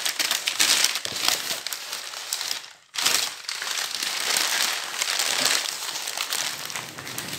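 Packing paper crinkling and rustling as it is pulled out of a cardboard shipping box and crumpled. The crackle stops abruptly about three seconds in and starts again at once.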